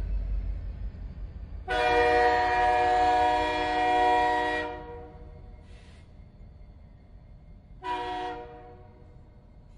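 Train horn sounding several notes together: one long blast of about three seconds, then a short blast near the end. A low rumble from the train fades away in the first second.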